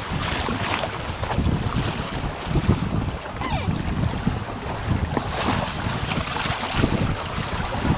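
Wind buffeting the microphone and water rushing and splashing along the hull of a Hobie Island sailing trimaran under way, with a few sharper splashes of spray.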